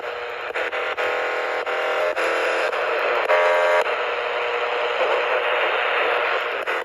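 Midland ER310 emergency radio tuned to the AM band, giving steady static hiss and crackle, with tones that break through and fade away twice.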